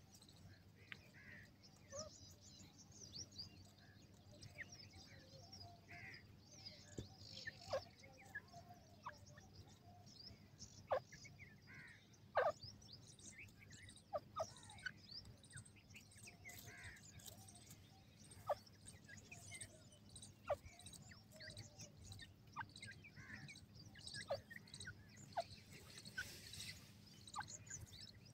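Grey francolins giving soft chirps and short, sharp 'cut' notes, scattered irregularly, with a few louder sharp notes about halfway through, over a faint steady low hum.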